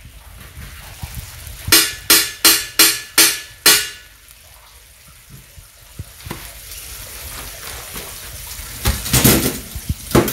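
Butter melting and sizzling on a hot steel flat-top griddle, the sizzle building from about halfway through. Earlier, six sharp metallic taps come about two a second, as butter is knocked off a utensil onto the griddle, and a few louder clatters follow near the end.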